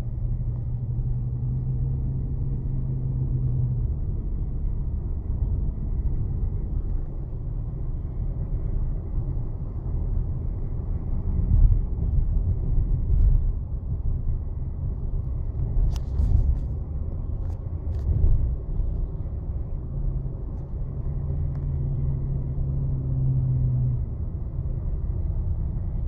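2011 Hyundai Elantra on the move, heard from inside the cabin: steady engine and road rumble, with a low hum that swells twice and a few short clicks about two-thirds of the way through. The steering screech is not sounding while the car is driving.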